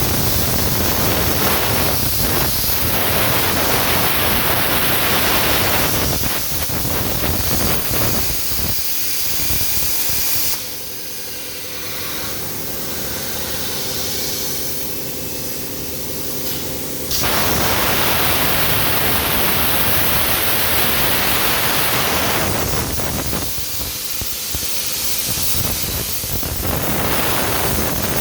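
CEA 75 plasma cutter arc cutting metal with a loud, steady hiss. The hiss drops away for several seconds about a third of the way in and again briefly near the end, leaving a quieter hum with steady tones.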